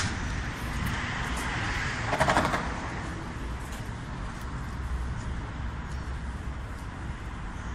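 City street ambience: a steady low rumble of passing traffic, with a brief louder rustling noise a little over two seconds in.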